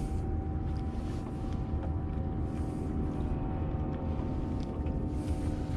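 Steady low drone of a boat motor, with a faint steady hum on top.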